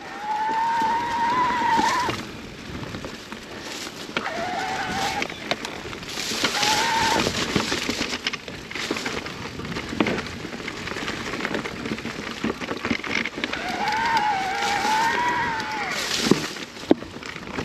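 An electric mountain bike's mid-drive motor whining in several surges as the rider pedals, its pitch bending slightly up and down. Under it runs steady tyre and trail noise, with knocks and rattles from the bike over rough ground.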